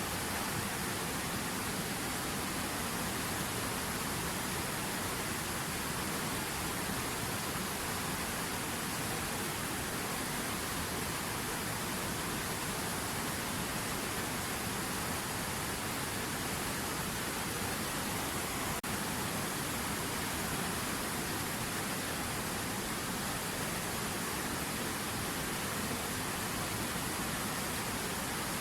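River water running, a steady, even rush of flowing water with no change. There is one brief click about two-thirds of the way through.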